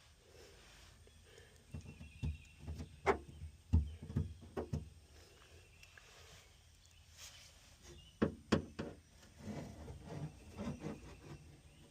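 Irregular scrapes and knocks from work on a car's bare floor pan as sound-deadening mat is pried and peeled away, coming in two clusters with quieter stretches between.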